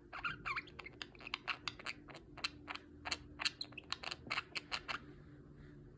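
Angry budgie scolding: a couple of chirps, then a rapid run of short, sharp, harsh notes, about five a second, stopping about a second before the end.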